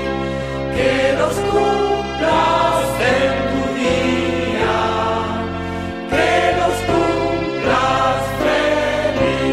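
Music with a choir singing sustained chords over a steady bass, its notes changing about once a second.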